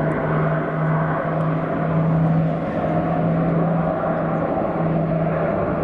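Twin turboprop engines of a LET L-410 Turbolet at takeoff power, a loud steady propeller drone with a constant low hum.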